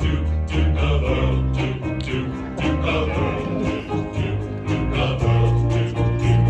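Music: the opening of a 1960s doo-wop song performed by a men's chorus, with instrumental backing and a steady bass line.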